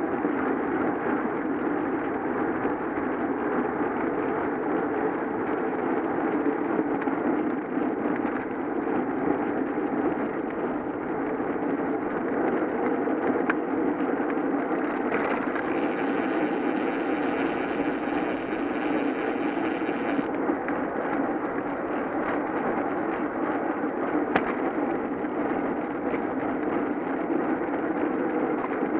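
Steady rush of wind and tyre noise from a bicycle ride picked up by a camera mounted on the bike. About halfway through a brighter hiss joins for roughly five seconds, then drops away.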